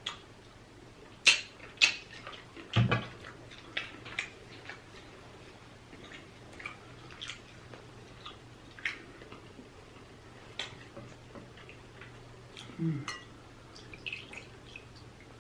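Close-miked eating of a seafood boil: scattered wet clicks and smacks of chewing and handling the food, with the sharpest snaps in the first three seconds. A short low voice sound falling in pitch comes about thirteen seconds in.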